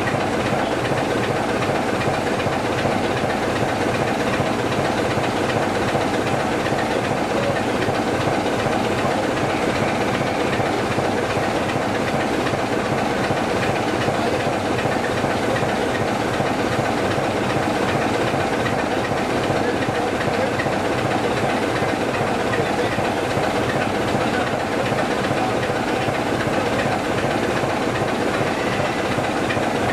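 BR Class 26 diesel locomotive D5310 idling steadily on its Sulzer six-cylinder engine.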